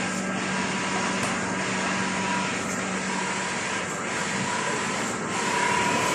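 Mutoh XPJ1682SR wide-format inkjet printer running mid-print: a steady mechanical whir with a constant low hum.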